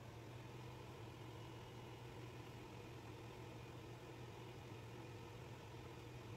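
Faint, steady low hum with a light hiss over it.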